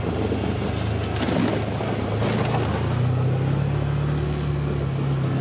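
Vehicle engine running steadily while driving, with a low hum and road noise; its pitch steps up a little about three seconds in.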